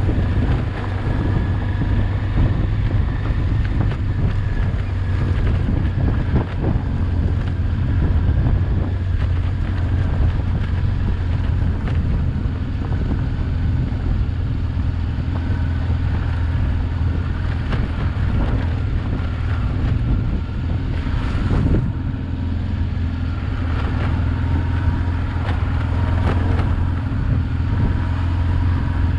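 Honda XL600V Transalp's V-twin engine running steadily at even revs while riding, with wind noise on the microphone and scattered short knocks.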